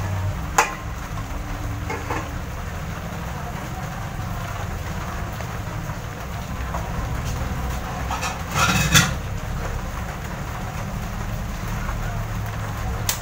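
A steady low rumble with a few light clicks. About eight and a half seconds in there is a short, louder clatter.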